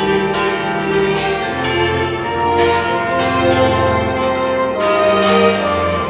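Several church bells ringing together in a continuous peal, with fresh strikes every half second or so overlapping the long ringing tones of the ones before.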